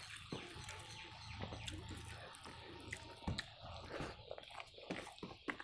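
A person chewing mouthfuls of rice and curry close to the microphone, with irregular wet smacking and squishing clicks.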